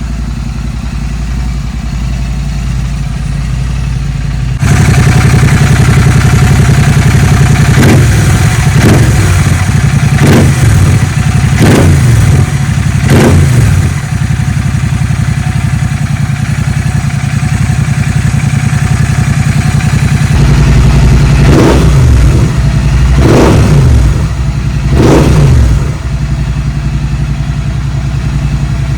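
Royal Enfield Continental GT 650's 648 cc parallel-twin engine breathing through a Red Rooster aftermarket exhaust, idling and then revved in short throttle blips: five about a second and a half apart, then three more near the end before it drops back to idle. The idle gets louder about five seconds in.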